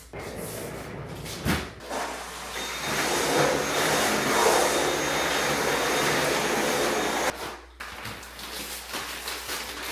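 A small motor-driven machine whirring steadily, louder from about two and a half seconds in, then cutting off abruptly about seven seconds in.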